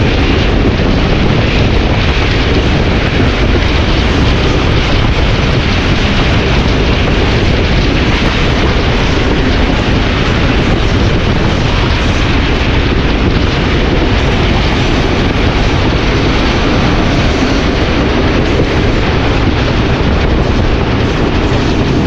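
Hitachi PHA-20 diesel locomotive engine running loud and steady, with a deep rumble and heavy noise throughout.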